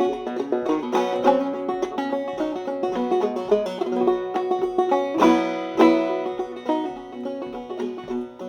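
Solo five-string banjo played clawhammer style, an old-time fiddle tune picked in a steady driving rhythm, in double C tuning lowered to B.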